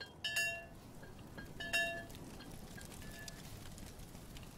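Brass coffee mortar being struck with its pestle: two ringing metallic clangs about a second and a half apart in the first two seconds, then faint crackling from the wood fire.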